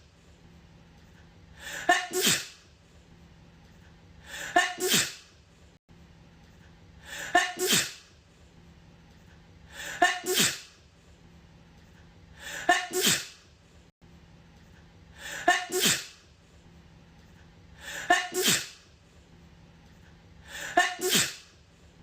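A woman's sneeze, the same one repeated in a loop eight times, about every two and a half to three seconds. Each is a short build-up and then a sharp 'achoo' whose voice falls in pitch.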